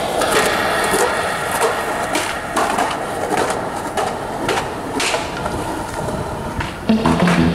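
Skateboard wheels rolling on smooth concrete, with several sharp clacks from the board striking the ground. Loud guitar music cuts back in near the end.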